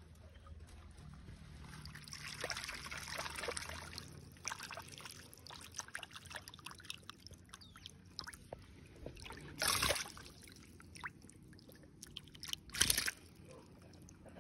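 Hand moving and splashing in pond water, with light trickling and two louder splashes about ten and thirteen seconds in as a goldfish is scooped out of the water.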